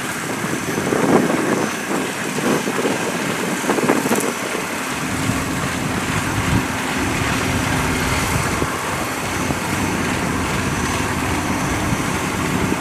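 Kubota DC93 combine harvester running steadily in place. About five seconds in, its sound fills out into a deeper, steady hum.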